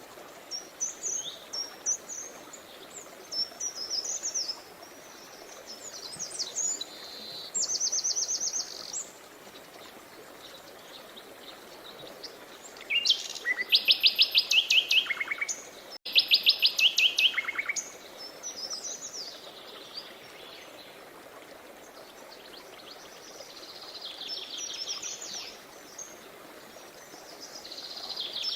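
Songbirds singing and chirping over a steady rushing stream. About halfway through there is a loud, fast trill of rapidly repeated notes, and it comes again a moment later.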